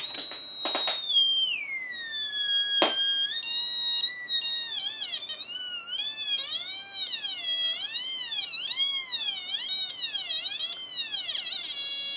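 A light-sensor DIY theremin kit, built on two 555 timers and two light-dependent resistors, playing through a small speaker with its loudness jumper off. After a few clicks as power is connected, a buzzy high electronic tone sinks in pitch. It then warbles up and down in repeated swoops, faster near the end, as a hand shades the light sensors.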